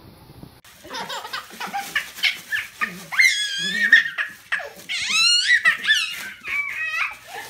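A baby shrieks and squeals with laughter while a small dachshund yips, tugging at a crinkly plastic gift bag. The high, gliding cries come in quick runs from about a second in.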